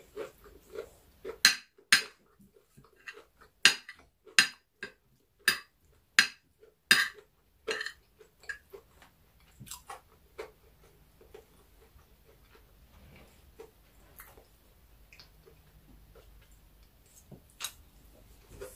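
Eating sounds: a spoon and fork clicking and scraping against a plate, with chewing. About a dozen sharp clicks come over the first eight seconds, then quieter, scattered chewing and cutlery sounds.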